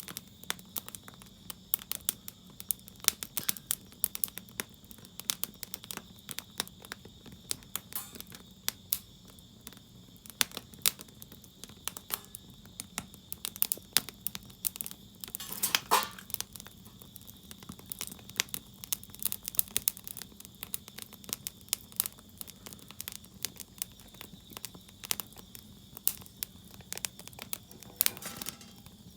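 Burning firewood crackling and popping in a steady stream of irregular sharp snaps, with one louder pop about halfway through.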